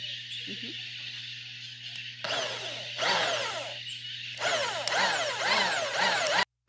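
A 550 W electric drill with a hole saw cutting into wood. It runs steadily for about two seconds, then bites in three times, its pitch wavering up and down under load, and cuts off suddenly near the end.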